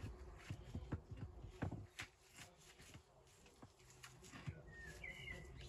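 Faint, irregular clicks and knocks of a flat wall stone being shifted and bedded by hand onto the stones beneath it in a dry stone wall, with light scuffing of grit and rubble.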